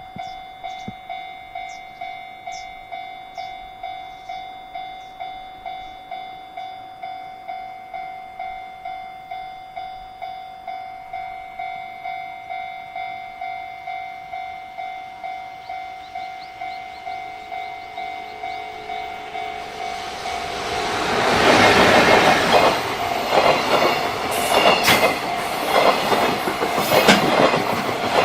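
Level-crossing warning bell ringing about twice a second. About two-thirds of the way in, a freight train passes close by, its wheels clattering over the rail joints and drowning out the bell.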